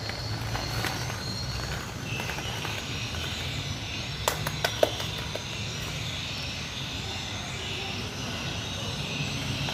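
Steady low background rumble, with a quick cluster of sharp clicks about four to five seconds in, from plastic ball-pit balls knocking together.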